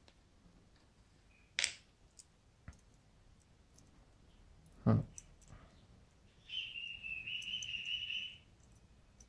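Small metal lock parts and a metal tool being handled: a sharp click about one and a half seconds in, a heavier knock about five seconds in, then a high scraping squeak lasting about two seconds.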